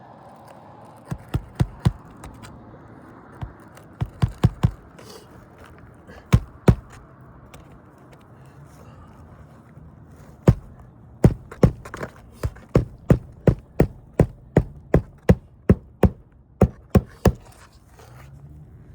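Hammer driving roofing nails into asphalt shingles: a few short runs of sharp blows, then a steady run of about twenty strikes at roughly three a second in the second half.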